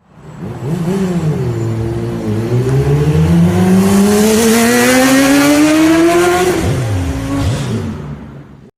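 Engine accelerating hard, its pitch climbing steadily for about five seconds before dropping away, followed by a couple of swooping rises and falls; the sound fades in at the start and cuts off near the end.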